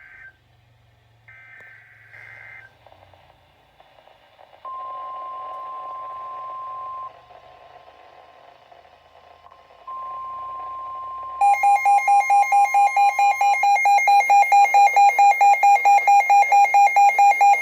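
Emergency Alert System alert tones announcing a severe thunderstorm warning: short high data-burst tones at the start, a steady single tone sounding twice, then from about 11 seconds in a loud rapid beeping of about four pulses a second.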